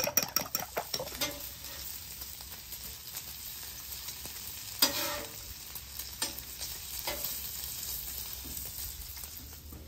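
A spoon beating eggs in a bowl, rapid clinking for about the first second, then bacon strips sizzling steadily on a flat-top griddle, with a few sharp clicks from a metal spatula, the strongest about five seconds in.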